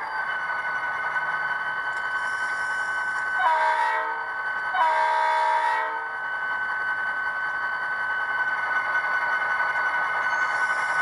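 DCC sound decoder of an HO scale model diesel locomotive blowing its horn twice, a short blast and then one of about a second, over the steady electronic engine sound.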